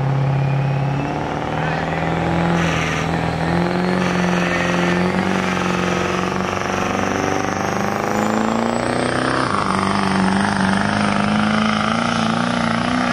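Truck engine running hard under load, as in a truck pull, its pitch stepping up as it revs, with a high whine climbing steadily in pitch throughout.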